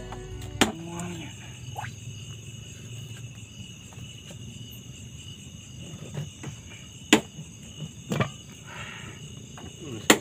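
Insects chirring steadily in a high, continuous drone, with a few sharp knocks about half a second in and again near seven, eight and ten seconds.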